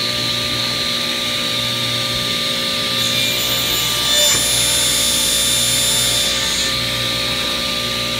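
Grizzly G0771Z hybrid table saw running at speed with a steady hum and whine from its 1¾ hp motor and 10-inch blade. From about three seconds in to past six, the blade crosscuts a 1-inch square walnut piece fed on the miter gauge, adding a higher cutting hiss and a brief rise in loudness; it goes through pretty quickly.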